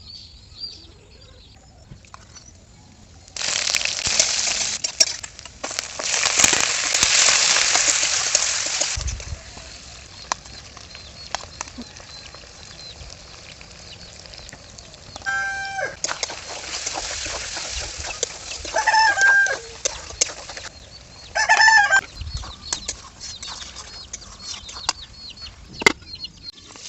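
Domestic chickens calling: three short, pitched clucking or crowing calls in the second half. Earlier, from about three seconds in, two loud stretches of steady hissing noise last several seconds.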